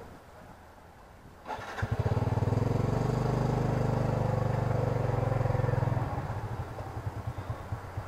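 Motorcycle engine of a Cambodian tuk tuk (remork) starting about a second and a half in, running fast and steady, then dropping to a lower, pulsing run about six seconds in.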